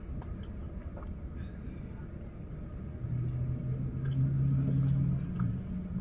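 Car cabin noise while driving: a steady low road and engine rumble, with a few faint clicks. About three seconds in, a steady low drone rises out of it and stops just after five seconds.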